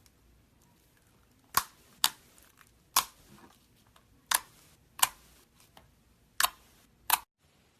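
Slime being pressed and poked, making seven sharp clicking pops about a second apart.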